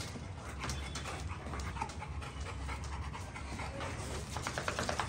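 French mastiff (Dogue de Bordeaux) panting, a run of quick breaths that grows denser near the end.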